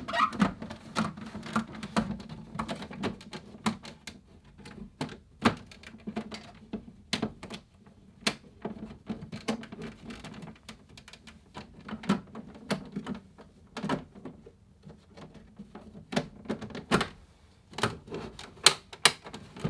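Irregular clicks and knocks of a Remington Streamliner portable typewriter and its case lid being handled and fitted together.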